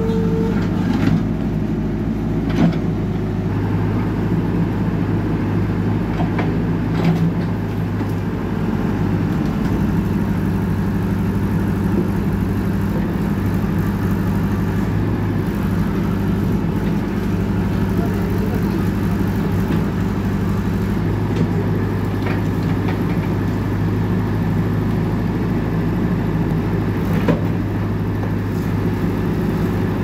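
JCB backhoe loader's diesel engine running steadily under load while the machine works to push over a tree, with a few short sharp knocks.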